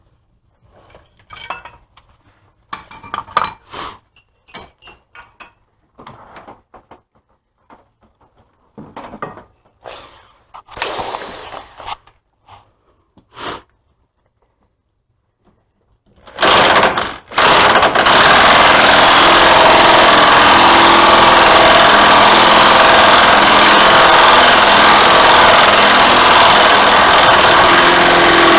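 Scattered knocks and clicks of tools being handled, then about sixteen seconds in a corded electric impact wrench fires a short burst and starts hammering, loud and continuous, running in the hub assembly's bolts.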